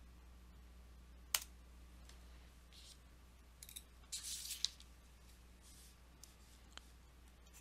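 A few sharp computer-mouse clicks over a faint steady hum: one click about a second in, a short scuffle of clicks and rustle around the middle, and another click near the end.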